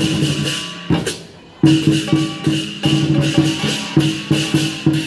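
Lion dance percussion: drum, cymbals and gong struck together in a steady beat, the cymbals ringing. The beat pauses briefly about a second in, then resumes at about three strikes a second.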